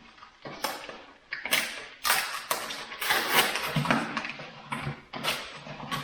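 Irregular rustling, clicks and knocks of items being handled and unpacked, about a dozen short bursts of uneven loudness.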